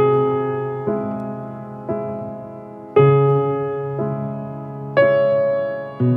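Background piano music: slow, gentle chords struck about once a second, each ringing and fading before the next.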